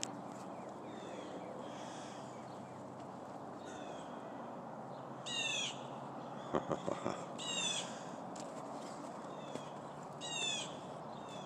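Songbirds calling: three short, loud calls, each a quick run of falling notes, spaced a couple of seconds apart, over faint chirping from other birds. A few soft knocks come in a cluster midway.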